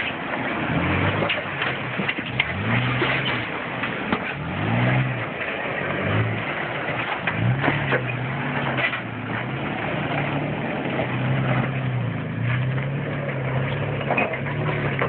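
Toyota FJ Cruiser's 4.0-litre V6 engine revving up and down again and again at crawling speed as it climbs over boulders, with scattered knocks and crunches from rock and gravel under the tyres.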